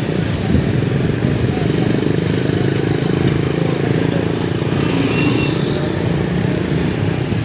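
A small vehicle engine, such as a motorcycle or auto-rickshaw, runs steadily close by, with the noise of street traffic around it.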